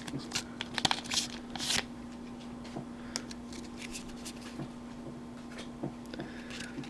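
Pokémon trading cards being handled: a cluster of rustling and flicking in the first two seconds, then only occasional faint taps.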